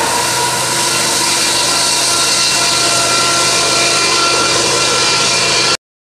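BNSF freight train passing close by: loud, steady noise of steel wheels rolling on the rail, with a few thin high tones running over it. It cuts off suddenly near the end.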